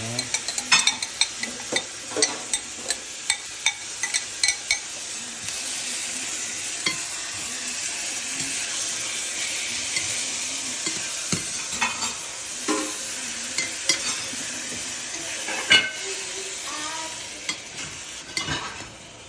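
Onion, green peppers and blended tomato frying in olive oil in a pan: a steady sizzle, with a utensil scraping and knocking against the pan as the mixture is stirred. The knocks come thick and fast in the first few seconds, give way to an even sizzle through the middle, and return near the end.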